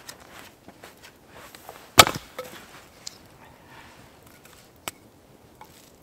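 A single loud, sharp wooden knock about two seconds in, then a fainter click near five seconds, with small scattered crackles between.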